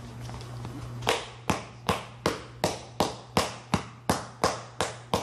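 Wooden mallet pounding the pocket of a water-soaked leather catcher's mitt to shape it. The sharp, even strikes begin about a second in and come nearly three a second, about eleven in all.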